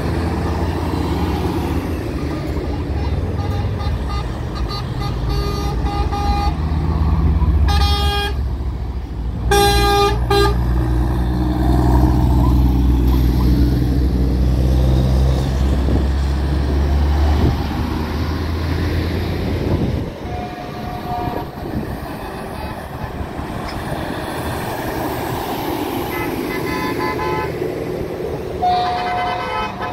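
Heavy trucks driving past in a convoy, their diesel engines running low and loud for the first twenty seconds or so. Two truck air-horn blasts come about eight and ten seconds in, and fainter horn toots follow near the end.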